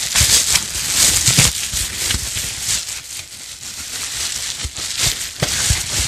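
Plastic packaging and bubble wrap crinkling and rustling in uneven bursts as kit parts are handled and unwrapped. There are a few light knocks near the end.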